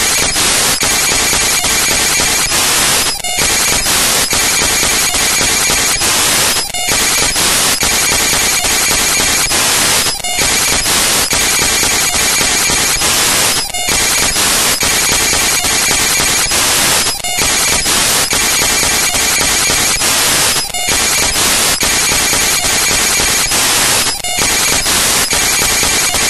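Loud, harsh static-like hiss that breaks off for a moment at regular intervals, about every three and a half seconds.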